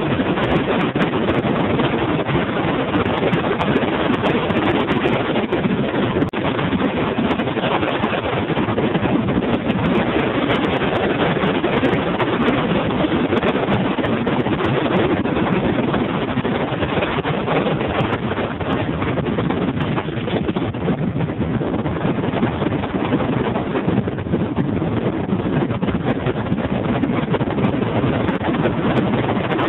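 Steady, loud wind noise on the microphone as a bass boat runs at speed, mixed with the Honda four-stroke outboard under way and water rushing past the hull.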